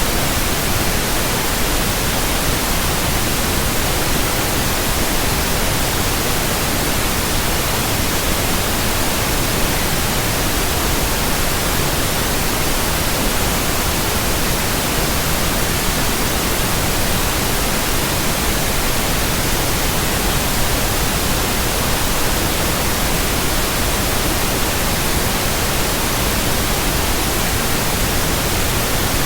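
Continuous, steady white noise: an even, unchanging hiss across all pitches.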